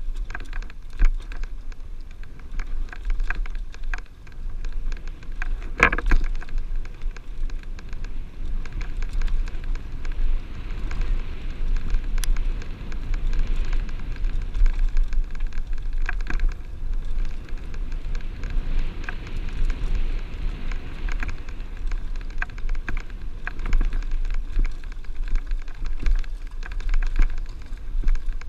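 Mountain bike ridden over bare sandstone, picked up by a helmet-mounted camera: wind rumbles on the microphone while the tyres and bike rattle with a steady stream of small clicks and knocks. A harder knock comes about six seconds in.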